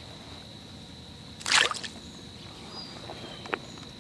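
A crucian carp dropped into a bucket of water: one short splash about a second and a half in.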